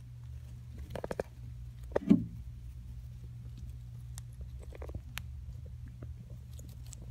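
A dwarf hamster moving through soft paper bedding: small scattered rustles and clicks, with one louder thump about two seconds in, over a steady low hum.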